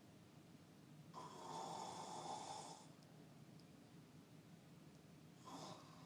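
A sleeping person snoring faintly: one long snoring breath of nearly two seconds, and another starting near the end.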